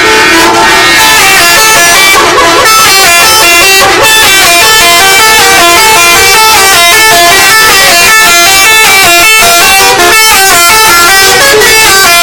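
Indonesian telolet bus horn, a multi-tone musical air horn, playing a loud tune. It opens with a few longer held notes, then from about two seconds in skips quickly up and down between several pitches in a repeating pattern.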